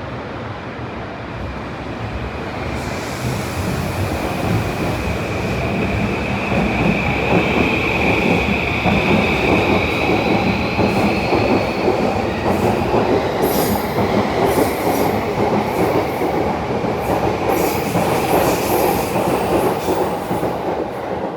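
Electric commuter train moving along the platform, growing louder over the first few seconds, with a high whine rising in pitch as it gathers speed, a steady wheel squeal, and wheels clicking over rail joints in the second half.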